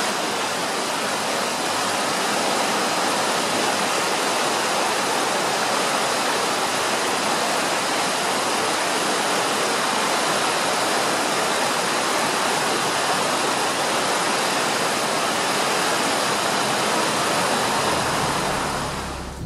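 Whitewater rapids of a fast-flowing river, a steady rushing of water that fades out near the end.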